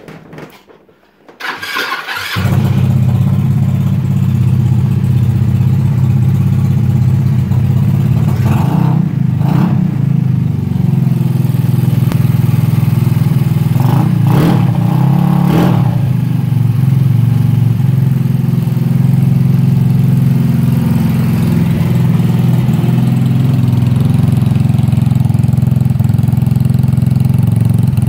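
Built 150cc GY6 single-cylinder four-stroke scooter engine starting about two seconds in, then idling steadily and loudly through an aftermarket muffler.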